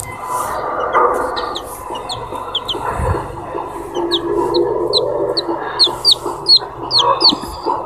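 Domestic chicken chick peeping: a string of short, high, downward-sliding cheeps that come faster and louder toward the end, over a steady background murmur.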